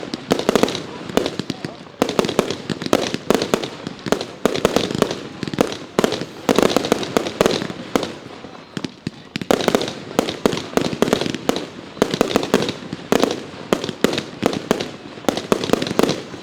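Consumer fireworks going off in a rapid string of sharp bangs and crackles, several reports a second, with short lulls about halfway through and near the end.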